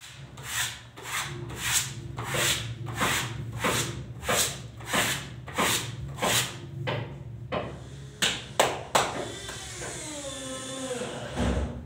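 Wallpaper being rubbed flat against the wall by hand with a cloth, in repeated swishing strokes about one every 0.6 s. The strokes stop with two sharp clicks about eight seconds in, followed by a wavering pitched sound for a couple of seconds, over a steady low hum.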